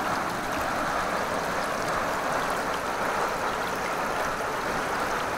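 Small forest waterfall rushing steadily into its pool, a continuous even roar of falling water.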